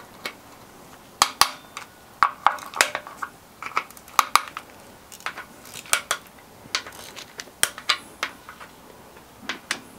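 Metal hand wrench clicking and clinking against the bolts and aluminium castings of a Honda K20 engine as bolts are loosened: a dozen or so sharp, irregularly spaced clicks, some ringing briefly.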